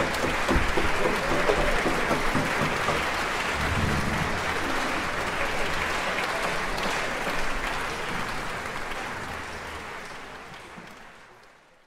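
Concert-hall audience applauding, a dense steady clapping that fades away over the last few seconds.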